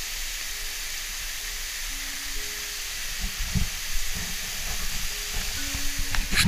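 Steady hiss of a tall waterfall's falling water and spray, under slow background music with held notes. From about halfway in, irregular low thumps join it.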